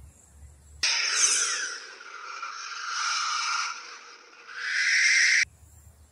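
Cartoon sound effect of Kirby inhaling: a loud rushing, hissing suction whoosh. It cuts in abruptly about a second in, eases off in the middle, swells again and cuts off abruptly near the end.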